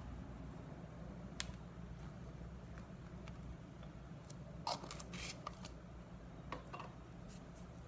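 A few soft clicks and taps from a spoon being handled as a tablespoon of baking powder is tipped over cake batter in a glass bowl, most of them around the middle, over a low steady hum.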